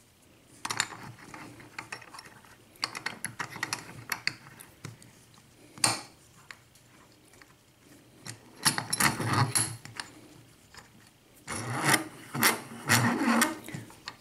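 Scraping and rattling handling noises from a half euro cylinder lock and small metal tools, in several bursts of a second or two, with one sharp click about six seconds in.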